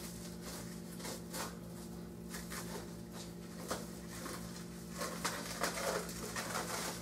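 Plastic cling film (Saran Wrap) unrolling from its roll and being wrapped around a waist: faint, scattered crinkling and rustling, a little busier near the end, over a steady low hum.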